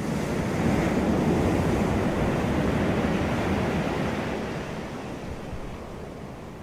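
Sea waves breaking on the shore: a rush of surf that swells over the first second and then slowly dies away as the wash subsides.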